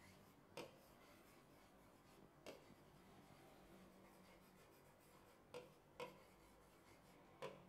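Faint marker pen writing on a board: soft rubbing strokes with a handful of light ticks as the tip touches down, against near silence.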